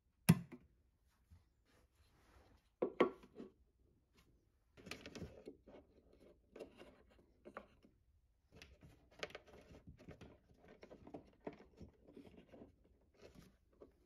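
Wooden nightstand drawer knocking shut just after the start, then another wooden knock about three seconds in. After that, light irregular clicks and rustles of charging cables being handled and pressed into the slots of a small wooden cable holder.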